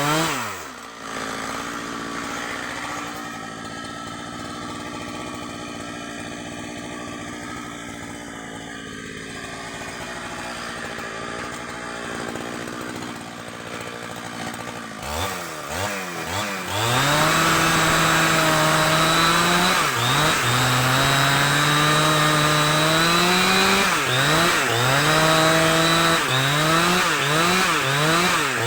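Chainsaw idling for about fifteen seconds, then revved hard and run at full throttle, its pitch repeatedly sagging and recovering as it bites into kapok wood.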